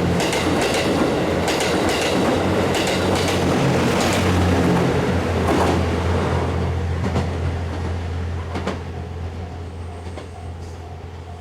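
JR West Series 87 Twilight Express Mizukaze diesel-electric train passing, its wheels clacking over rail joints above a steady low engine hum, fading away from about halfway through. Near the end the level-crossing warning bell can be heard ringing at an even beat, about twice a second.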